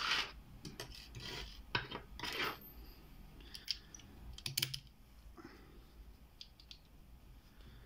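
Small metal clicks and scrapes from handling an IFAM padlock and lock picks, with several sharp clicks in the first five seconds and fainter ones after.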